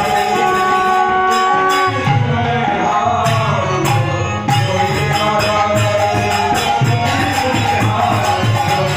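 Devotional kirtan music: a drum keeping a steady beat with cymbal clashes, held steady tones in the first second or so, and a singing voice near the end.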